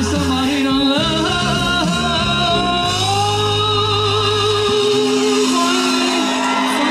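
A singer holding long, wavering notes into a handheld microphone over a backing track. The low bass drops out about two-thirds of the way through, leaving the voice over lighter accompaniment.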